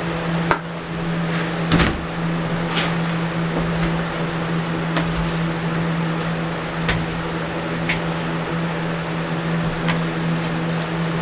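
Steady mechanical hum with scattered light clicks and knocks; the loudest knock comes about two seconds in.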